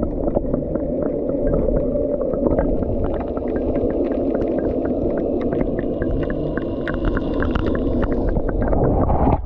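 Underwater sound picked up by a submerged action camera: a steady, muffled low wash of seawater with many small scattered clicks and crackles over it.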